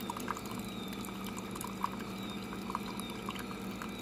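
Keurig K-Mini coffee brewer running a thin stream of coffee into a ceramic mug: a steady pouring trickle with small scattered plinks and a low steady hum underneath.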